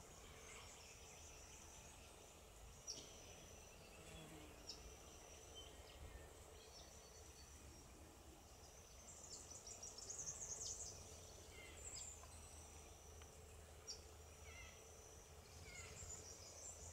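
Faint background calls of small birds: several short, high, thin whistled notes spread through, and a burst of high chattering a little past halfway, over quiet outdoor ambience.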